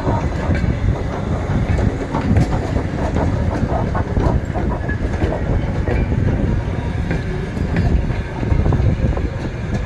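A train moving along the tracks: a steady low rumble with scattered clicks from the wheels on the rails.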